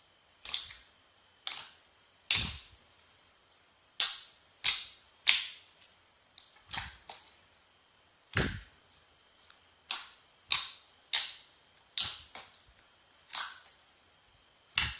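Glossy slime being pressed and pulled by hand, making sharp air-pocket pops and clicks, about one a second at uneven intervals.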